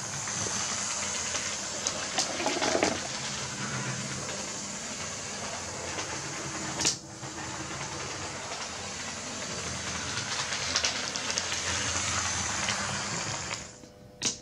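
Lima HO scale Class 33 model diesel locomotive running on the layout's track: a steady, quiet whir of its motor and wheels rolling on the rails. There is a sharp click about seven seconds in and another near the end.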